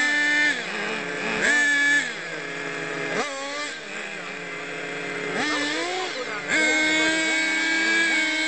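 Several radio-controlled cars' motors whining, holding steady high tones while other pitches swoop up and down with the throttle. The sound drops back about two seconds in and comes back louder about six and a half seconds in.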